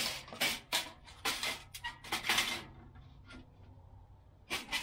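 Metal brackets and screws being handled and fitted: a run of sharp metallic clinks and scrapes, several in the first two and a half seconds and one more near the end.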